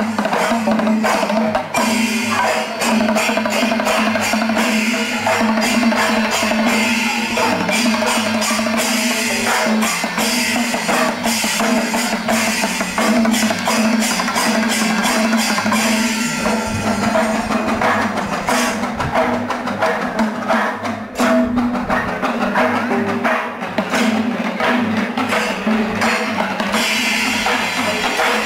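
Background music led by drums and percussion, a fast, steady beat over a held tone.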